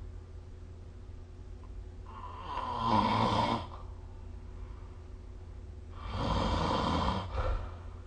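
A sleeping person snoring: two snores about three and a half seconds apart, each lasting about a second and a half, the first a little louder.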